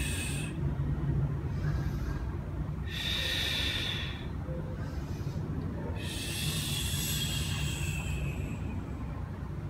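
A woman's audible breathing during a Pilates twisting and forward-flexing exercise. Three breaths come a few seconds apart: one fading just after the start, one about three seconds in, and a longer one of about two seconds near six seconds in. A steady low hum runs underneath.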